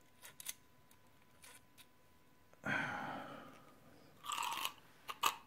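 Faint handling noises of small screws and deck parts on a workbench: a few light clicks, a short rustle about two and a half seconds in that fades away, and a brief scrape near the end.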